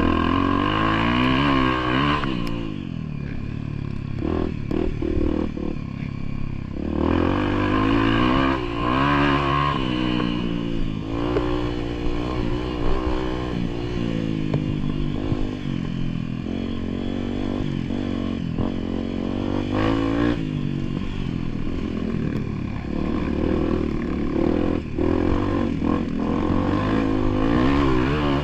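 Motorcycle engine on a trail ride, its revs rising and falling over and over under the throttle, with clatter and scraping over rough ground.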